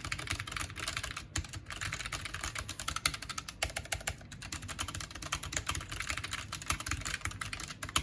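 Fast, continuous typing on a Keychron K1 low-profile mechanical keyboard with brown switches: many quick key clicks in a row, the keys clacking as they bottom out.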